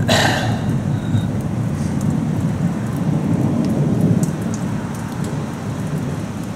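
Thunder rumbling low and slowly dying away, with rain falling. A short crackling hiss comes right at the start.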